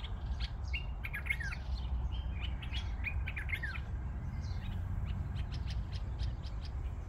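Small birds chirping and tweeting: many short calls and a few quick falling notes, over a steady low rumble.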